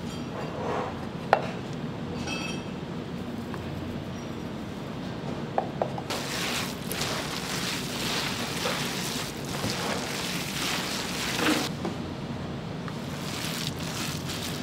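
Restaurant kitchen sounds: a few sharp clinks of dishes or utensils over a steady background hum, with a hissing noise lasting about six seconds in the middle.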